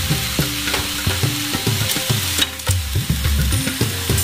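Razor clams in their shells sizzling in a frying pan as they are pressed and turned by hand, with occasional clicks from the shells. They are being cooked down into tsukudani.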